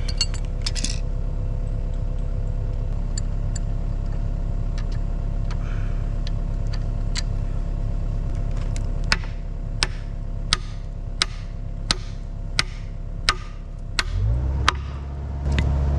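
Excavator diesel engine idling steadily while a wrench clicks on the bucket's pin bolt, a few scattered clicks at first, then a regular click about every 0.7 s from about nine seconds in. Near the end the engine revs up and runs louder.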